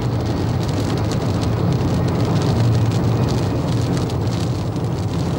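Rain hitting a car's windscreen while driving, over the steady drone of tyres and engine heard from inside the cabin.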